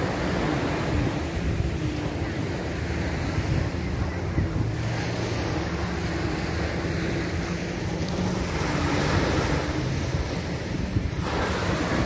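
Wind buffeting the phone's microphone over the steady wash of surf, with a faint, slightly wavering hum underneath.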